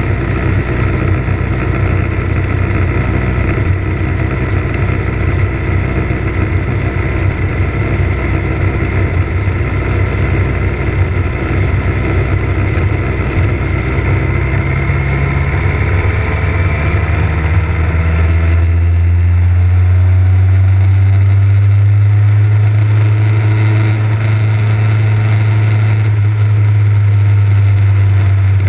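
Motorcycle engine running under way, with a steady rushing noise over it. About two-thirds of the way through, the engine note rises, then settles into a louder, steadier low hum.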